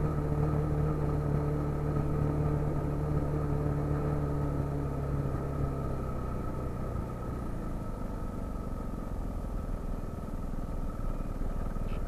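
Motorized bicycle's motor running steadily while riding in street traffic. A low engine hum fades out about two thirds of the way through, while a steady higher whine carries on.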